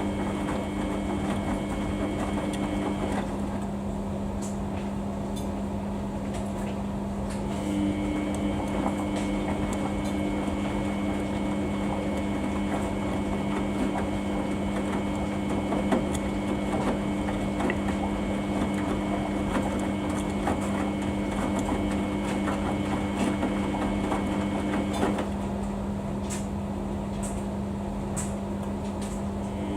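Samsung washing machine running a wash cycle. The drum motor whines while it turns the drum, stops about three seconds in, starts again a few seconds later and runs for about seventeen seconds before stopping again near the end. This is the drum's turn-and-pause wash action. A steady low hum and light knocking of the wet load continue throughout.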